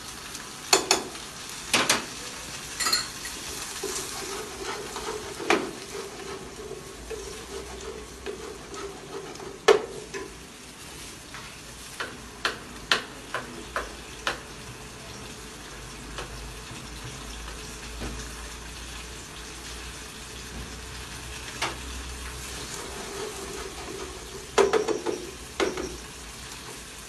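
Peas and spices frying and sizzling in hot oil in a pan while a wooden spatula stirs, with sharp knocks of utensils on the pan every few seconds and a quick run of them about halfway through.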